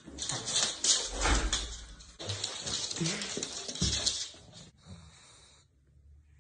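Pugs snuffling and their claws clicking on a wooden floor, a ragged run of noisy sniffs and ticks that fades out near the end.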